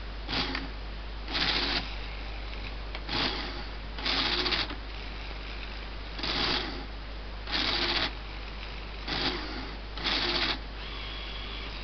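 Small Lego Technic electric motors and gearing whirring in eight short bursts, each under a second long, with brief pauses between them, as the model forging press and its manipulator move step by step.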